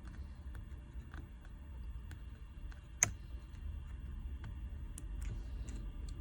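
Small repair tools clicking and tapping faintly on an opened smartphone's internals, with one sharper click about three seconds in, over a low steady hum.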